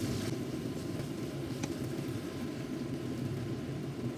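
Tomato sauce simmering in a frying pan while a wooden spatula stirs it, over a steady low rumble, with one faint tap of the spatula about one and a half seconds in.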